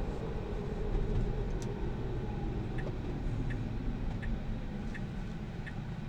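Steady road and tyre rumble inside a Tesla Model 3's cabin, with the turn-signal indicator starting to tick about halfway through, roughly three ticks every two seconds, as the car signals for an upcoming turn.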